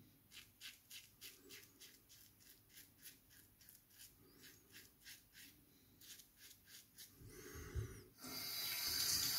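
Open-comb safety razor with an Astra Platinum blade making short, faint scraping strokes through lathered stubble on the chin, about three a second. About eight seconds in, a water tap starts running into the sink.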